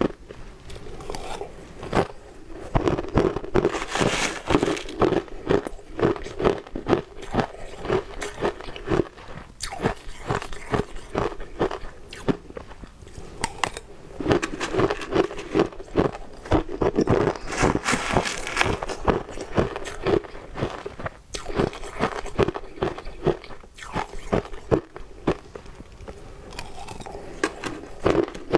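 Close-up crunching and chewing of frozen crushed ice, a dense run of crackly bites, with a metal spoon scraping ice from a plastic tub now and then.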